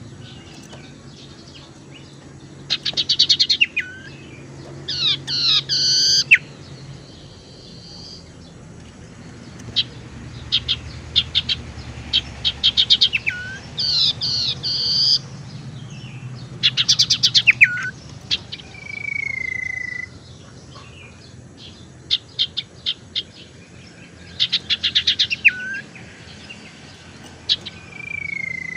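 Common iora (sirtu) singing: repeated bursts of quick, rattling high notes, several ending in a short lower note. Twice, at about 19 s and again near the end, comes a long whistle that slides down slightly and then holds steady.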